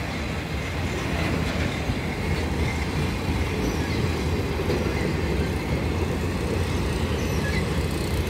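Empty flatcars of a freight train rolling past, a steady rumble of steel wheels on the rails.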